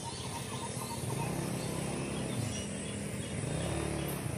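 Motorcycle engine running at low revs with road and traffic noise.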